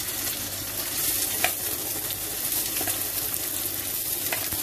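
Finely chopped onion sizzling as it fries in hot oil with crackled mustard seeds, with a steady hiss and two light clicks of a steel spoon against the pan.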